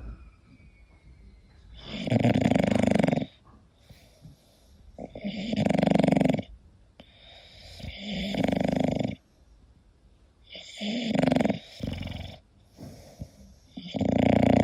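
English bulldog snoring in its sleep: a loud snore about every three seconds, five in all, each lasting a second or so, with quiet breathing between.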